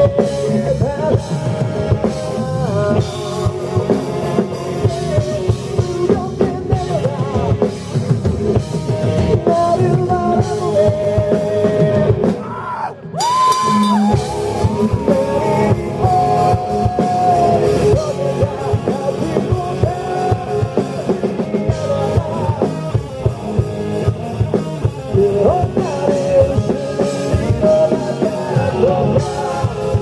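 Rock band playing live through a PA: a male singer over drums and distorted electric guitars. The music briefly drops near the middle before the full band comes back in.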